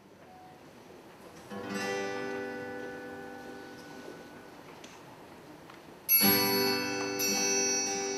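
Harmonica ensemble starting a piece: a soft accompanying chord rings and slowly fades, then about six seconds in the harmonicas come in together with a loud, sustained chord.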